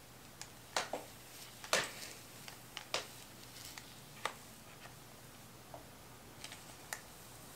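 Scattered light clicks and taps from handling a hair flat iron: picking it up and clamping its plates shut on a strand of hair, about ten sharp clicks in all. A faint steady low hum runs underneath.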